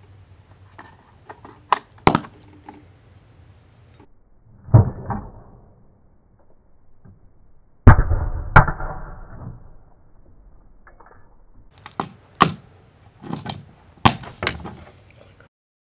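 Electrical snaps and bangs of a short circuit, a metal binder clip bridging the prongs of a plug pushed into a power strip and arcing: scattered small clicks, two heavy bangs about five and eight seconds in, the second trailing off over a couple of seconds, then a quick run of sharp cracks near the end.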